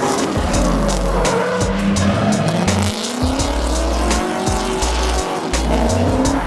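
BMW E46 drift car sliding through a corner, its engine revving up and down while the tyres squeal. Background music plays underneath.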